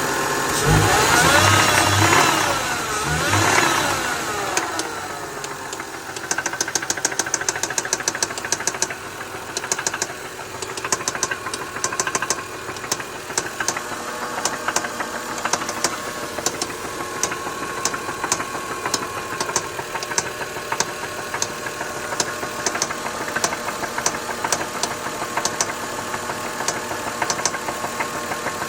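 2003 Lexus GS300's 3.0-litre straight-six engine revved briefly near the start, then running at idle with a regular, fast knocking tick. The owner does not know what is causing the knock.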